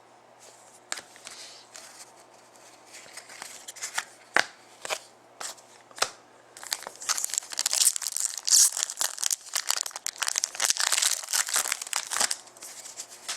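Foil trading-card pack wrapper being handled. At first there are scattered light clicks and rustles, then about six and a half seconds in comes a dense stretch of crinkling and tearing lasting about six seconds.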